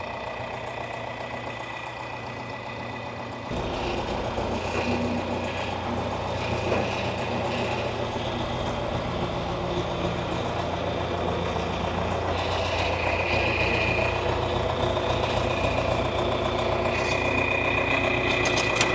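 Old farm tractor engine idling steadily; about three and a half seconds in it gets louder and deeper and keeps running at that level.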